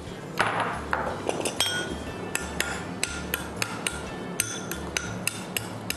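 Kitchen utensil sounds: a short scrape on a wooden cutting board, then a run of light clinks and taps against a bowl, about two a second, each with a brief ring.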